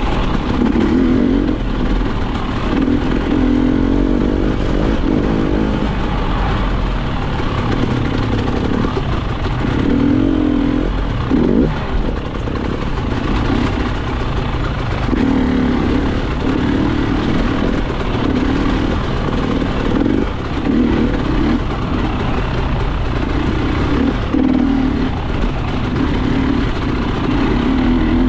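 Off-road enduro motorcycle engine under way, its revs rising and falling every second or two as the throttle is opened and shut, over a steady low rumble.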